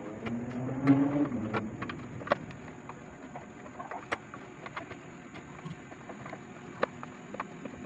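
Plastic hull of a Heng Long 3918 Abrams RC tank being pried apart by hand: scattered sharp clicks and snaps as the unscrewed upper hull is worked loose from the lower hull. A short pitched sound in the first second and a half is the loudest part.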